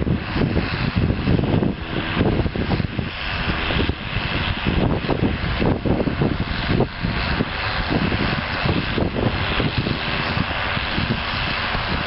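John Deere 6810 tractor's six-cylinder diesel engine running steadily under load while pulling a plough through the soil.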